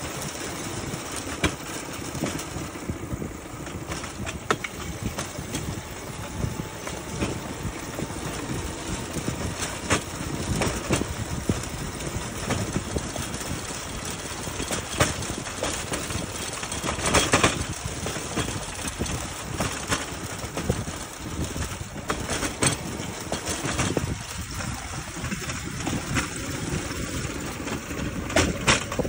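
Rail bike's steel wheels rolling along the railway track: a steady rumble with sharp clicks and knocks scattered through it, loudest about seventeen seconds in.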